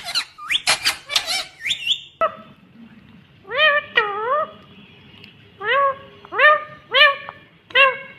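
Indian ringneck parakeet vocalising: a quick run of bending, chattering notes in the first two seconds, then, after a short pause, about six short arched calls, each rising and falling in pitch, spaced roughly half a second to a second apart.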